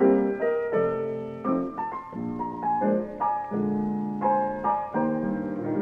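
Solo piano playing a slow jazz tune, a run of chords and single notes that ring on.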